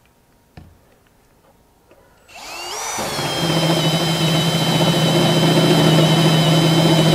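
A Milwaukee cordless drill in low-speed drill mode starts a little over two seconds in and turns an annular cutter through thick, freshly oiled steel. Its high motor whine dips slightly as the cutter bites, over a steady low hum from the cut.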